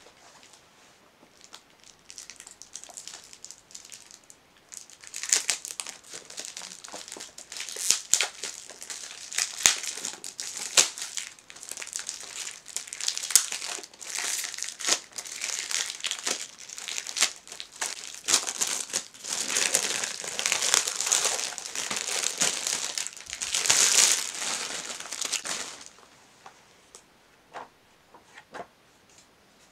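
Clear plastic wrapping crinkling and crackling as a wrapped book set is handled and unwrapped, in irregular bursts that stop a few seconds before the end.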